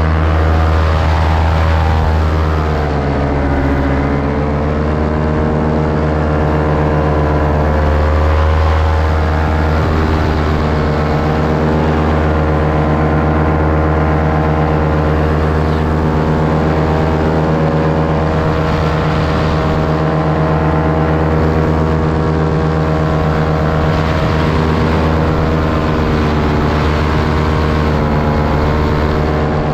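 Paramotor engine and propeller running steadily at high power. The engine note dips and comes back up about three to four seconds in, then holds steady.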